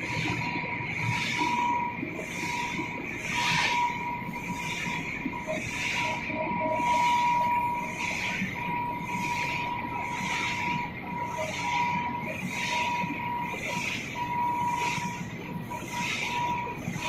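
Corn flakes production line machinery running steadily: a continuous whine with a regular hissing pulse a little more than once a second.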